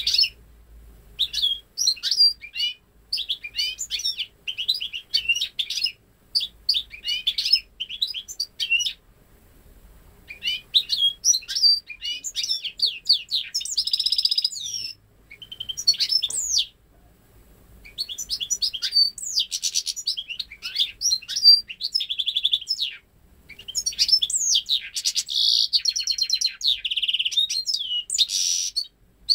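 Goldfinch × canary hybrid (saka mule) singing: long phrases of quick twittering notes and buzzy trills, broken by a few short pauses. Its song is made up entirely of goldfinch phrases, learned without ever hearing a male canary.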